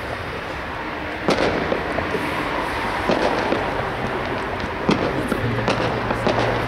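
Fireworks exploding at a distance: a sharp bang about a second in and another about five seconds in, with smaller pops and crackles between them over a steady background hiss. A low steady hum comes in near the end.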